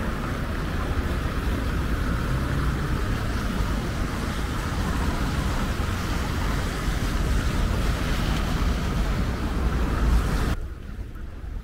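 City street traffic: cars passing through an intersection as a steady wash of tyre and engine noise, with wind rumbling on the microphone. Near the end the sound drops abruptly to a quieter hush.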